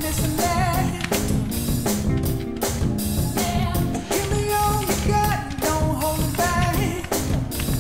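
Pop song with a singer over a steady drum beat, the music track of a pyromusical firework display.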